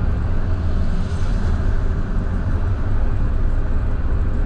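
Scania K320IB bus running, a steady low engine and road rumble.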